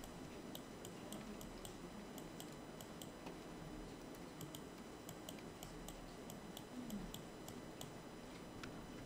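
Faint, irregular clicking of a computer mouse and keyboard, a few clicks a second.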